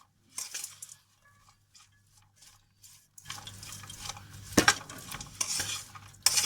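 A spoon stirring popped popcorn in a pot. There is a short rustle, a pause of a few seconds, then steady rustling with clinks of the spoon against the pot and one sharper knock about four and a half seconds in.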